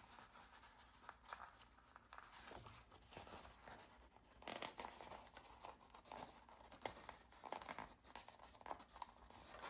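Faint paper rustling and crinkling as a sticker is peeled from its sticker sheet, with a few soft ticks of handling.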